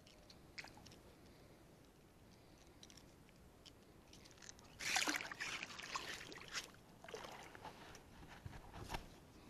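Water splashing and sloshing close by, starting about halfway through in a few irregular bursts, as fish on a rope stringer are handled at the water's edge.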